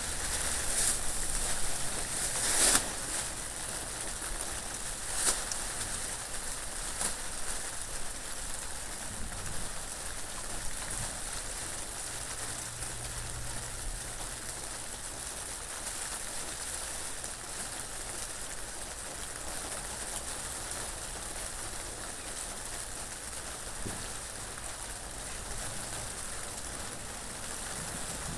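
Steady rain falling, an even hiss, with a few louder, sharper drop hits in the first few seconds.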